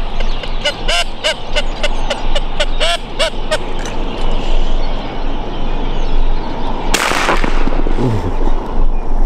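A quick string of duck quacks for the first three seconds or so. About seven seconds in comes a single shotgun shot.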